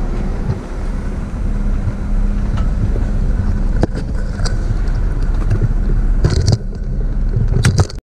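Jeep Wrangler engine running at idle, with several sharp clicks and knocks over it, the clearest nearly four seconds in and a few more in the last two seconds.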